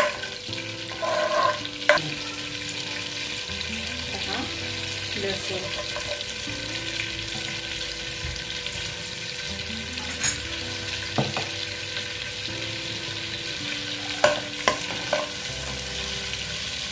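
Butter and oil sizzling in a metal kadhai as crushed garlic fries in it, a steady hiss, with a metal spoon stirring and clinking against the pan a few times.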